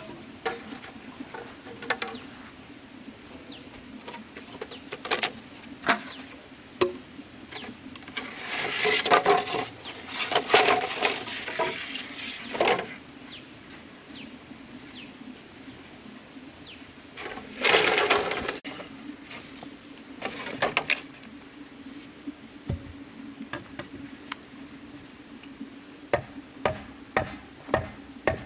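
Scattered sharp knocks and two longer stretches of scraping, rustling noise over a steady low hum, with a quick run of knocks near the end.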